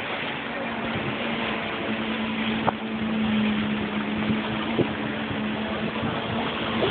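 Jet ski engine running at speed on the water, a steady drone that grows stronger about two seconds in, over a wash of water and wind noise.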